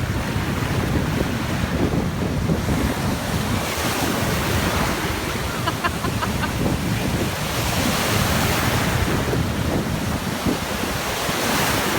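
Ocean surf breaking and washing up the shore, swelling about four seconds in, again around eight seconds and near the end, with wind buffeting the microphone.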